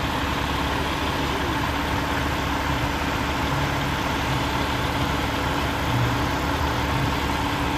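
Pierce Arrow XT fire truck's Detroit Diesel DD13 engine idling steadily.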